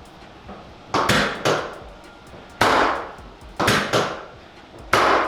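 Six sharp knocks from chiropractic adjustments on a treatment table, some coming in quick pairs, each dying away briefly.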